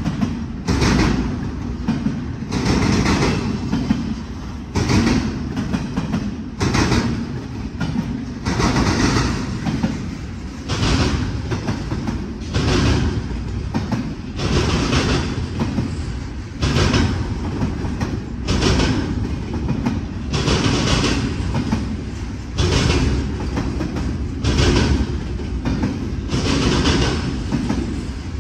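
Double-stack intermodal freight train rolling past at close range: a steady low rumble, with the wheels clattering over the track in a regular rhythm about every two seconds.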